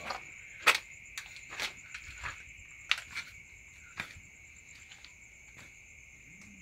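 Crickets chirring steadily in the dark, with a few sharp clicks and scuffs in the first few seconds, the loudest under a second in and near the three-second mark.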